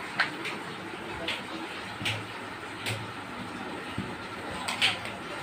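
A toddler playing with toys on a tiled floor: a handful of short, irregular taps and knocks over a steady background hum.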